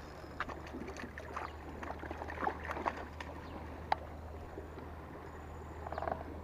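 Faint handling noise of a fishing rod and line: scattered small clicks and rustles over a low steady hum, with one sharper click about four seconds in.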